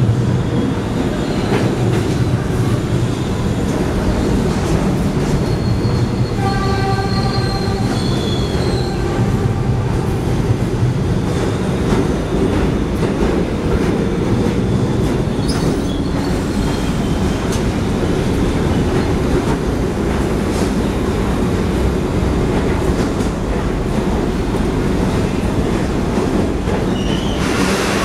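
Kawasaki R62 subway train pulling into an underground station and rolling slowly along the platform, a steady loud rumble of wheels and running gear. A short high, pitched tone sounds about six seconds in and lasts a few seconds.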